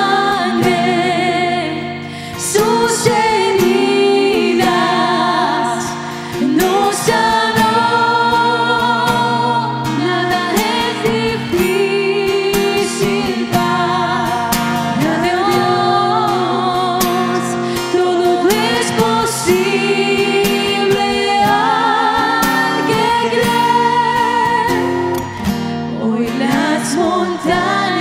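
Two female voices singing a Spanish-language Christian song together with vibrato, accompanied by an acoustic guitar.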